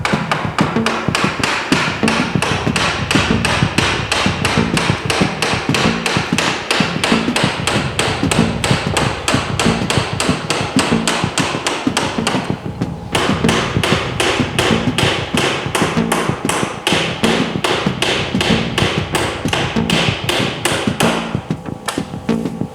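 Hammer blows struck in quick, even succession, about three to four a second, with a brief pause about halfway through.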